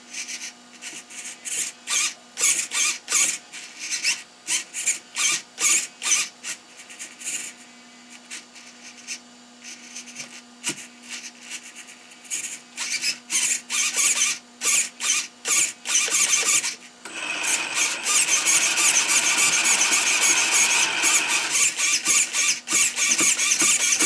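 Steering servo of a Feiyue FY06 RC truck whining in short, repeated bursts as the front wheels are steered back and forth from the transmitter. For the last several seconds it changes to a steady whine. The steering had been sticking, which the owner puts down to binding aluminium parts.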